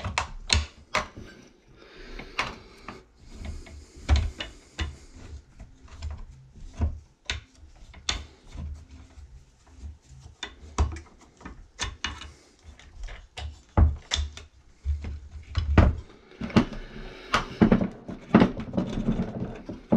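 Irregular clicks, taps and knocks of a flathead screwdriver and small metal and plastic parts being handled while the carburetor is unscrewed and worked off a Poulan 3400 chainsaw.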